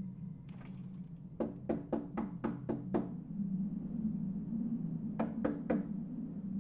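Knocking on a front door with a fist: a quick run of about seven knocks, then three more a couple of seconds later, over a low steady hum.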